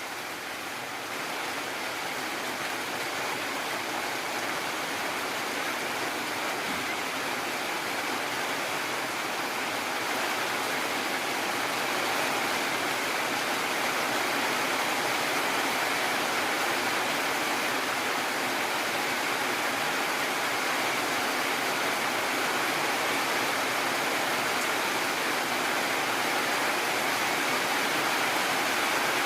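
Heavy rain falling steadily, an even hiss that grows slightly louder over the first dozen seconds and then holds.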